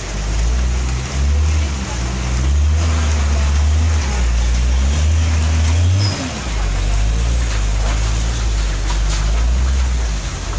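Six-wheel (6x2) diesel cargo truck's engine pulling in a low gear through a tight hairpin bend, a deep steady drone. Its note shifts lower about six seconds in.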